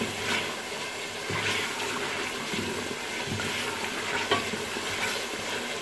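Beef frying with yogurt, red chilli and salt in a pressure-cooker pot, sizzling steadily while a wooden spoon stirs it, scraping and knocking against the pot every second or so. This is the bhuna stage, frying the meat until the yogurt's water dries off.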